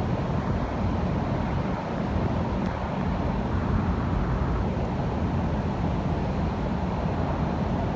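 Steady low outdoor rumble with no distinct events, the kind of hum typical of an urban plaza.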